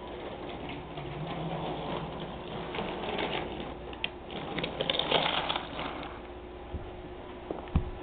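Toy train running on its track: a steady motor hum with a running rattle that swells about five seconds in, and a few sharp clicks.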